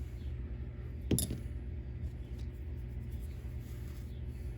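A single sharp click of small plastic RC-car suspension parts being handled, about a second in, over a steady low background hum.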